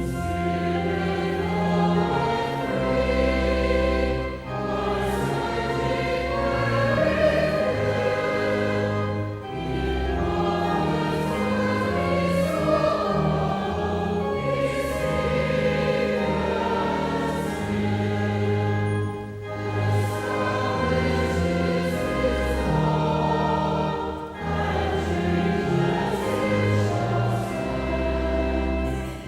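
A hymn sung by many voices over accompaniment with long held low notes. It goes in phrases, with short breaks between lines roughly every five seconds.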